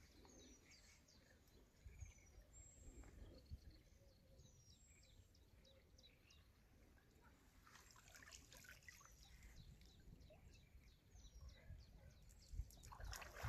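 Near silence with small birds chirping faintly, short falling chirps repeated every second or so. Near the end, water begins splashing and dripping as a wet cast net is lifted out.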